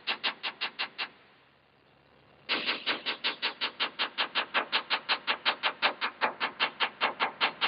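Small metal tap-test hammer rapidly tapping the bonded aluminum skin of a Grumman light aircraft, about seven light taps a second, checking the bond line for delamination. The taps stop about a second in and resume after a pause of about a second and a half. The first taps are the solid hit of a sound, still-bonded joint.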